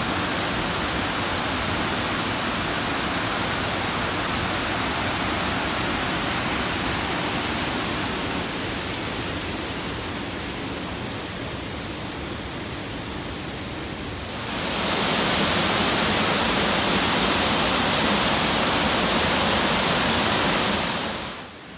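Waterfall pouring into its plunge pool: a steady rush of falling water, softer for a few seconds in the middle, then louder and hissier from about two-thirds of the way in, close to the falling water, before it cuts off near the end.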